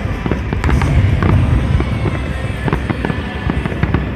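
Fireworks display going off: many sharp bangs and crackles close together over a continuous low rumble.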